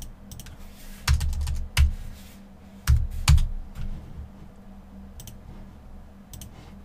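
Computer keyboard typing and mouse clicks: a quick run of key presses about a second in and another cluster around three seconds in, with fainter clicks scattered through, over a faint low hum.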